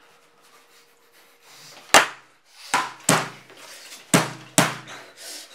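A nata (Japanese hatchet) brought down hard again and again: a run of sharp, heavy blows. The first and loudest comes about two seconds in, and the rest follow over the next three seconds.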